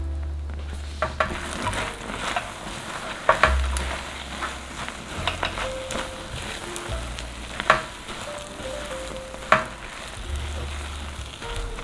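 Silicone spatula stirring and scraping a thick, sticky melted marshmallow mixture with whole nuts in a nonstick frying pan, with a few sharp knocks as the spatula and nuts strike the pan. Soft background music underneath.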